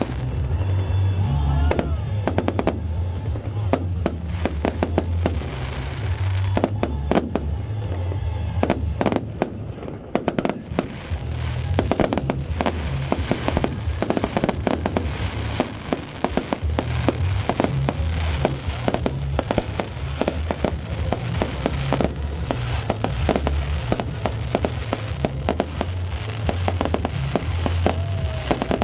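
Fireworks going off in a dense, continuous run of bangs and crackles, over loud music with a heavy bass.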